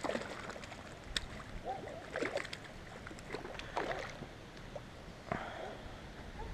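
A hooked trout splashing at the surface of the pond in short, irregular bursts as it is reeled in, then a sharp thump a little over five seconds in as it is swung out onto the grass bank.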